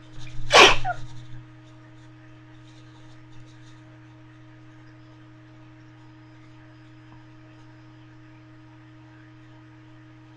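A single loud, sudden sneeze about half a second in, lasting about a second, over a steady low hum.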